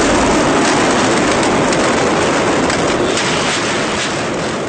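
Mascletà firecracker barrage: a dense, continuous crackle of many small bangs merging into one loud noise, slowly getting quieter toward the end.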